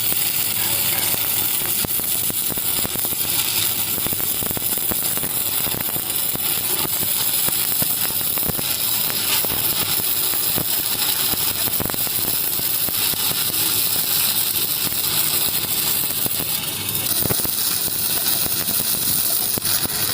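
Electric arc welding with a stick electrode in a welding holder: a steady crackling hiss with many small sharp pops, unbroken throughout.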